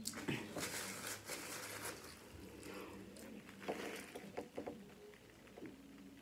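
Close-miked chewing and mouth noises, with small crackles and clicks as a paper napkin and a plastic water bottle are handled; a sharper click comes a little past halfway.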